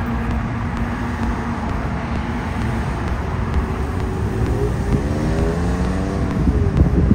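Road traffic: cars driving past close by with a steady low rumble, and from about four seconds in one engine revs up, its pitch rising as the vehicle accelerates away.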